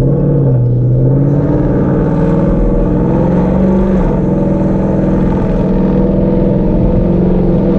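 2018 Mustang GT's 5.0 L Coyote V8 pulling through a Steeda H-pipe exhaust, heard from inside the cabin: the engine note climbs in pitch over the first two seconds or so, then holds steady. The H-pipe gives it a cleaner, louder tone.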